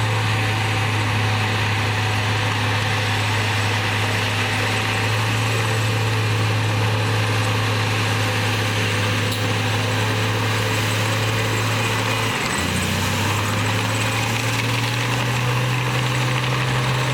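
Komatsu D58E bulldozer's diesel engine running steadily under work. About twelve seconds in its pitch drops briefly, then picks back up.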